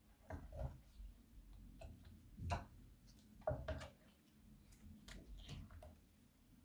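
Silicone spatula stirring thick slime in a glass dish: faint, irregular sticky clicks and small pops, two louder ones near the middle.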